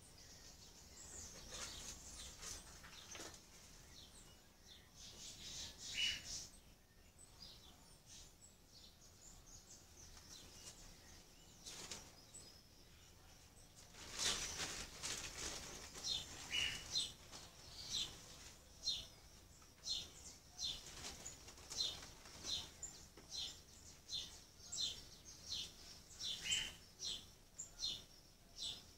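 Faint birdsong: a small bird giving short, high chirps, few at first and then over and over at about one or two a second from about halfway through, with an occasional lower falling note.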